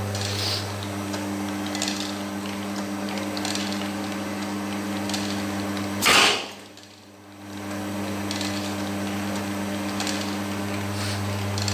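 Capsule filling machine running with a steady low hum and faint scattered clicks. About six seconds in there is one short, loud rush of noise, after which the hum drops away for about a second before returning.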